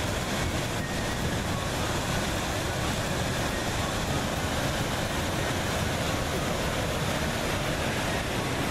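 Wind rushing steadily and buffeting the microphone with a low rumble.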